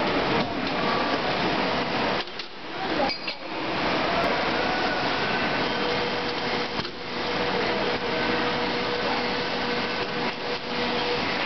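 Vertical injection moulding machine for cable overmoulding running with a steady hum and hiss, dipping briefly about two seconds in and again near seven seconds. Metal clinks and knocks come from the mould and cables being handled.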